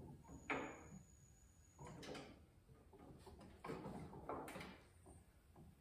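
A handful of faint, irregularly spaced clicks and knocks as the burner control and push-button igniter of a Blackstone tabletop propane griddle are worked in an attempt to light it.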